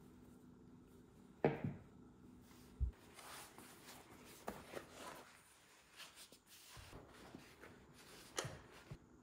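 Workshop handling sounds: a sharp knock about a second and a half in and a dull thump just before three seconds, then soft rustling and light clicks of black nappa leather being handled and pulled over a steering wheel rim.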